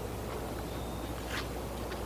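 Quiet background: a steady low hum under faint hiss, with one light click about one and a half seconds in. No gunshots.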